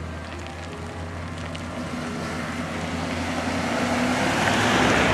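Chevrolet Silverado pickup truck driving up and passing close by, its engine hum and tyre-and-road rush growing steadily louder and peaking near the end.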